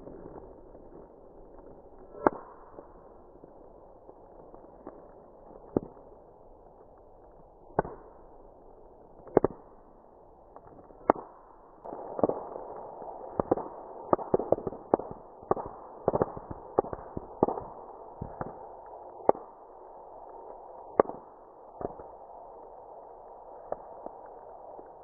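Bubble wrap being twisted, its bubbles bursting in sharp, irregular pops over a steady crackle of plastic. The pops come a few seconds apart at first, then in a quick flurry through the middle.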